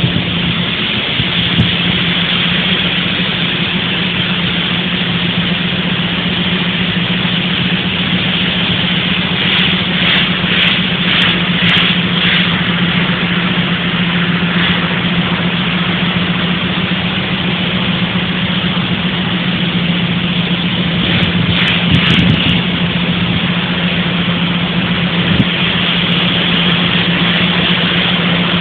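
Steady, loud drone of running machinery with a constant low hum, briefly joined by louder, rougher passages about a third of the way in and again past two-thirds.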